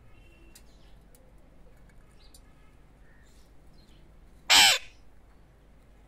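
Alexandrine parakeet giving one short, loud call about four and a half seconds in, with a few faint clicks and soft chirps before it.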